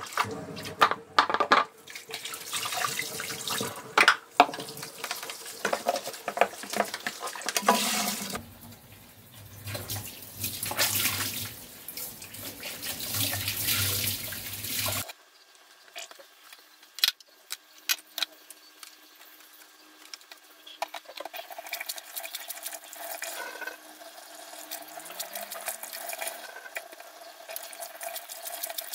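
Kitchen tap running into a stainless steel sink while things are washed and rinsed by hand, with scattered clicks and knocks. About halfway through, the sound becomes abruptly quieter and thinner.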